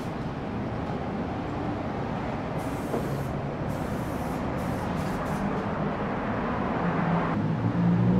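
Aerosol spray paint can hissing in several short bursts in the middle, over a steady traffic rumble. Near the end a vehicle engine's low hum swells and grows louder.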